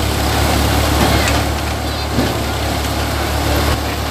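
Tractor-driven paddy thresher running steadily, with a loud, even drone from its drum and the Massey Ferguson 5245 tractor's diesel engine as bundles of rice straw are fed through.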